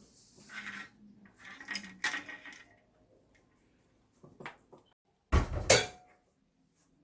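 Hard parts being handled: scraping and rattling clatter, a few light clicks, then a loud knock with a deep thud about five seconds in.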